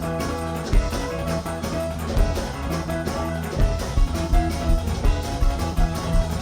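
Music with guitar and bass, a drum beat coming in about halfway through.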